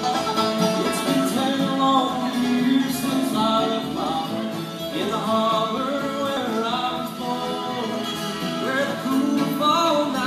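Live bluegrass band playing, with acoustic guitar and banjo and a voice singing over them.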